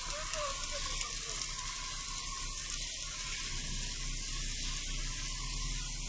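Steady hissing rush of a pine forest fire burning, with water spraying from a fire hose onto the flames. A low hum joins about halfway through.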